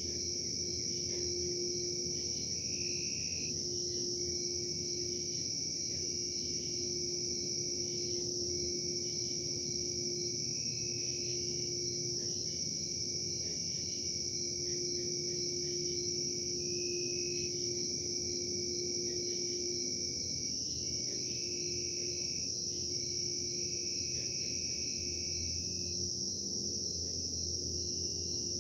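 Steady high-pitched chirring of crickets in a night insect chorus, over a low hum and a steady droning tone from industrial production machinery. A higher tone steps up and down every few seconds, and the low rumble swells slightly near the end.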